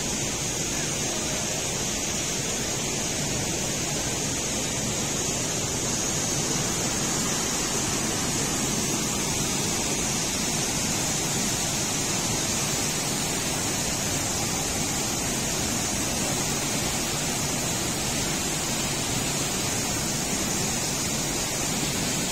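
River water rushing through a rocky gorge: a steady, even rush with a constant high hiss above it.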